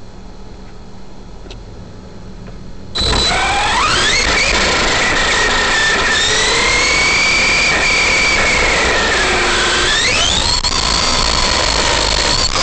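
Arrma Big Rock V3 RC monster truck's electric motor and drivetrain whining as the truck takes off about three seconds in, over a loud rushing noise. The whine climbs in pitch as it speeds up, dips around ten seconds as it eases off, then climbs again.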